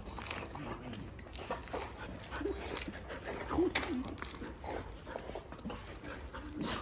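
Dogs whining and whimpering in excitement as they greet their owner, with a couple of short rising-and-falling whines midway, amid scuffling.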